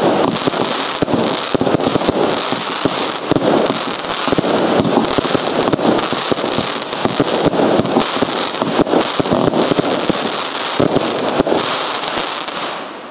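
Future Aurora fireworks cake firing shot after shot in rapid succession: a dense string of launch thumps and aerial bursts that fades away near the end.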